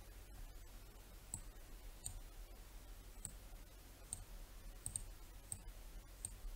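Faint computer mouse clicks, about eight of them at irregular intervals, two close together about five seconds in, over a low steady hum.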